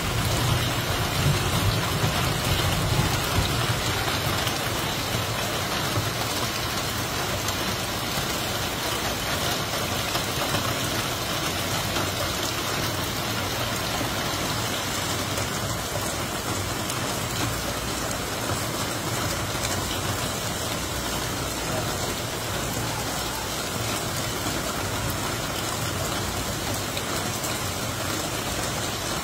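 Torrential monsoon rain pouring steadily onto flooded, waterlogged ground, a dense even hiss. There is a little more loudness and a low rumble over the first few seconds.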